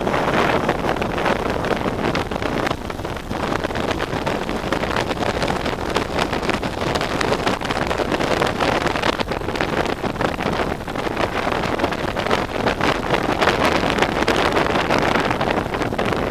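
Wind rushing over the microphone of a helmet-mounted camera while riding along a road, a steady rumbling noise with small rises and dips.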